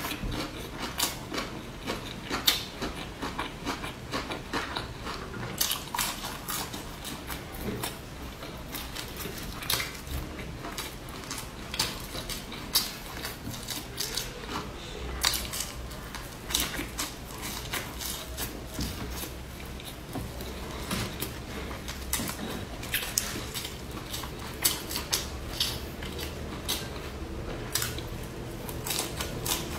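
Close-miked chewing and mouth sounds of someone eating fried sausages: many irregular sharp clicks and smacks, several a second.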